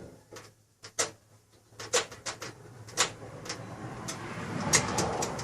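Irregular metallic clicks and knocks from the passenger door latch of a 1951 Chevrolet truck being worked by hand: the reinstalled original turn-down-handle latch, which is sticking again. A rising noise builds near the end, with a quick cluster of clicks.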